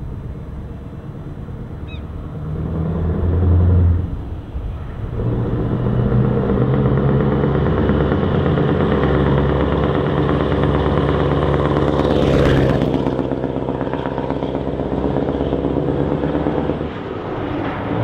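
Scania R580's 16.4-litre V8 diesel with open exhaust pipes running under power as the truck drives past, a deep pulsing exhaust note that grows louder as it comes closer. A brief hiss about twelve seconds in, as it passes, before it moves away.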